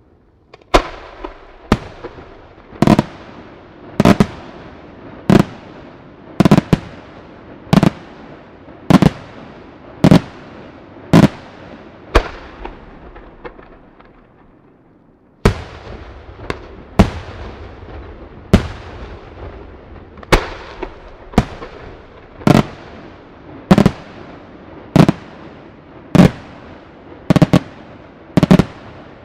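Aerial firework shells bursting in a steady series, a sharp bang a little less than once a second, some in quick pairs, each trailing off in echo. The bangs stop for about three seconds around the middle, then start again suddenly.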